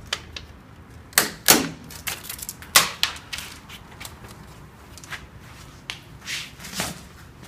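A series of sharp clicks and knocks, the loudest in the first three seconds and fainter ones later, as the last nylon packing strap holding the table top to its base is cut and handled.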